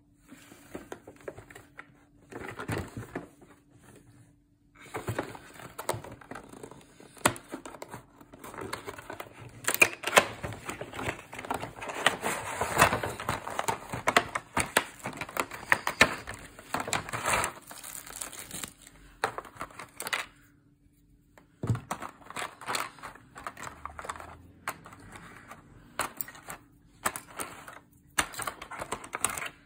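Clear plastic blister tray of a model-airliner kit being handled and pulled out of its box: irregular crinkling and crackling of thin plastic, busiest in the middle, pausing briefly twice.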